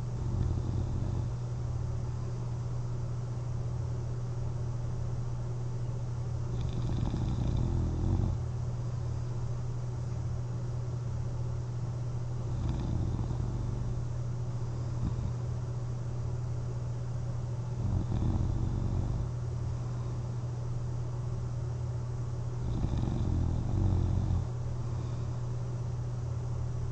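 A person sleeping on their back while wearing a CPAP mask, snoring softly and regularly, with a low, rough snore about every five seconds over a steady low hum.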